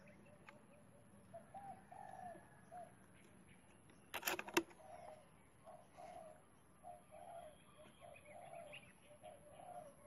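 An Armscor air rifle converted from CO2 to PCP fires once about four seconds in, a short sharp report. A bird's low calls repeat steadily in the background.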